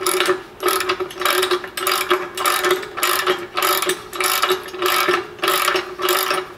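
Socket ratchet clicking in quick back-and-forth strokes, a burst of pawl clicks about every half second, as a 3/4-inch nut is run tight against an open-end wrench holding the bolt.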